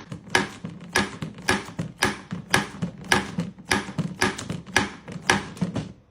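A series of sharp knocks or taps, about two a second, stopping just before the end.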